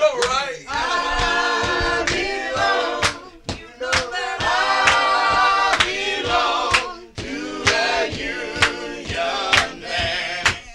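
Small group of mostly male voices singing gospel a cappella in close harmony, with a steady percussive beat of sharp hits underneath.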